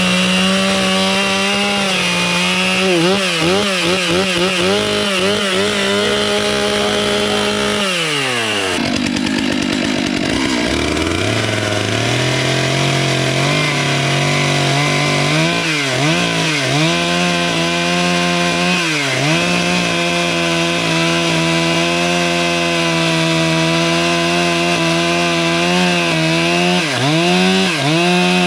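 Petrol engine of a saw running hard through wood. Its pitch holds steady, then falls sharply about eight seconds in as it slows, and climbs back a few seconds later. After that it dips briefly under load several more times.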